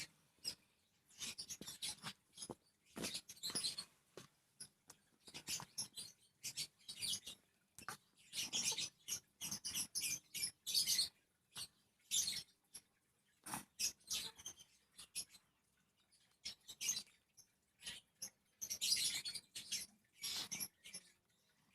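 Hands rubbing and pressing on a child's back during a massage: short, irregular rubbing strokes of skin and fabric friction, several a second, fairly faint.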